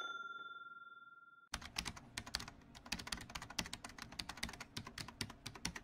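A bell-like ding fades out over the first second and a half, then a rapid, steady run of computer-keyboard typing clicks begins, a typing sound effect for on-screen text.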